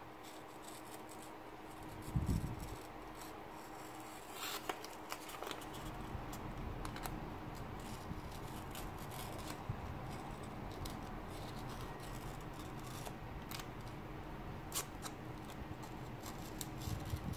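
A bare 9 mm snap-off utility-knife blade, a Dorco 60° blade, slicing through a hand-held sheet of paper: a run of short scratchy cuts and ticks, the blade cutting well. A low thump about two seconds in.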